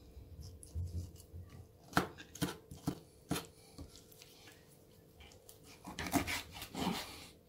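Kitchen knife cutting and trimming a raw sole on a wooden cutting board: several sharp knocks of the blade against the board between about two and three and a half seconds in, then a longer rough cutting noise through the fish around six seconds in.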